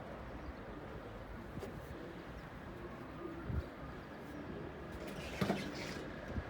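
Pigeons cooing in the background, with a few sharp knocks, the loudest about five and a half seconds in.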